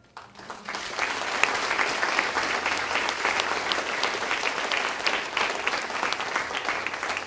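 Audience applauding at the end of a poem: the clapping starts right away, swells within the first second and then holds steady.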